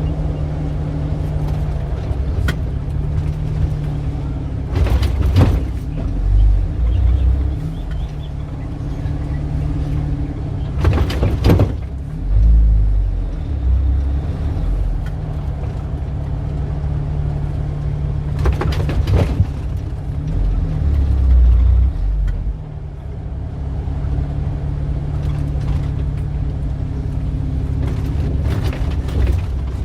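Street traffic: a steady low engine hum with vehicles passing. Three short bursts of noise come at about 5, 11 and 19 seconds.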